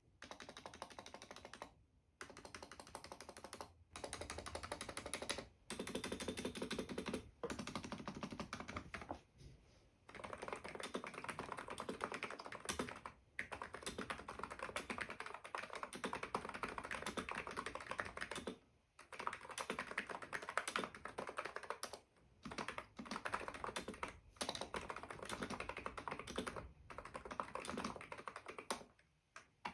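ABKO KN01 electro-capacitive (contactless) keyboard with stock keys, typed on fast in runs of a few seconds with brief pauses between them.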